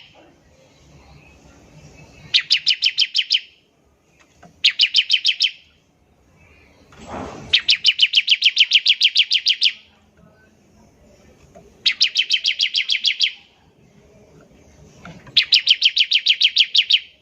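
Bar-winged prinia (ciblek) singing its rapid machine-gun 'ngebren' burst: runs of fast, evenly spaced high notes, about nine a second, each run lasting one to two seconds. The bursts come five times with short pauses between, the longest about two seconds in the middle. A brief low rustle comes just before that longest burst.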